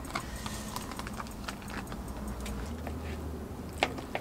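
Plastic food bag crinkling and rustling in the hands, with scattered light clicks and taps of utensils, and a sharper tap near the end.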